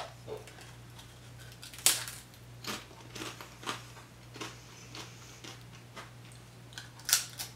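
Crunching of a Sumi potato chip being bitten and chewed: sharp crunches at the start, about two seconds in and about seven seconds in, with softer chewing crunches between.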